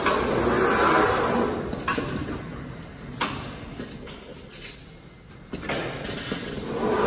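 Jug palletizer robot at work: a rushing mechanical noise as the gantry carries a plastic jug across the pallet, two sharp clicks about two and three seconds in as the gripper sets the jug down and lets go, then the rushing noise rising again near the end as the gantry moves off.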